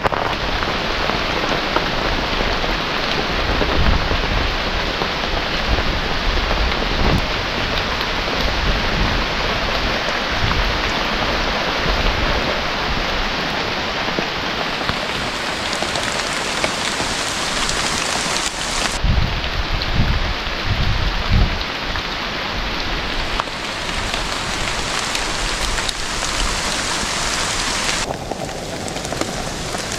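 Heavy rain falling steadily on a tarpaulin shelter, with low rumbles of thunder in two stretches, a few seconds in and again past the middle.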